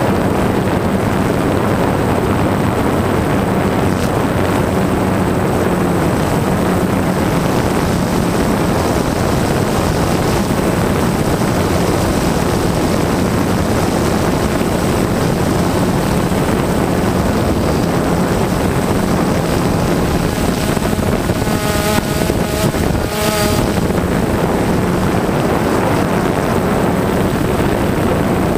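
Drone motors and propellers whirring steadily in flight, heard from the drone's onboard camera.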